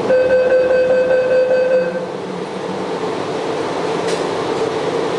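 Bombardier rubber-tyred metro train of the Taipei Metro Wenhu line running with a steady rumble. For about the first two seconds a steady high tone with overtones sounds over it, then stops.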